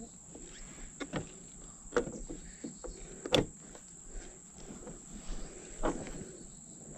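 Scattered clinks and knocks of hand tools and metal hinge hardware on a car door, the loudest about three and a half seconds in, over a steady high-pitched drone of crickets.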